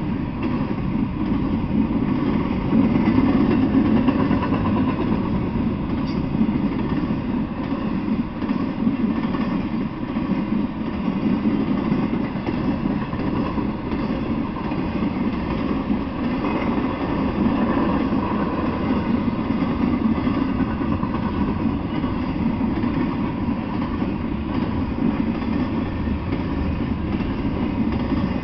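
Intermodal freight train rolling past, a steady rumble of its wheels on the rails.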